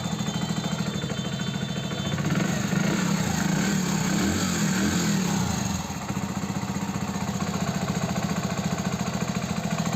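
Hero Passion Plus BS6 single-cylinder motorcycle engine idling, revved up for a few seconds from about two seconds in, then dropping back to idle. It runs without tappet rattle now that the valve rocker clearance has been reset, and is called completely silent.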